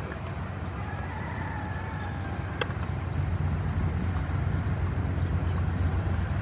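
ZCU-30 diesel locomotive approaching, its low engine rumble growing louder from about halfway through. A single sharp click sounds a little before the middle.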